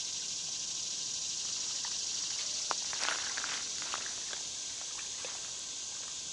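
Steady high hiss of outdoor ambience, with a few light clicks and knocks about three seconds in.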